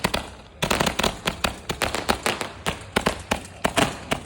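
An 888-shot Gatling firework cake going off in a rapid string of sharp cracks, several a second, after a short lull at the start.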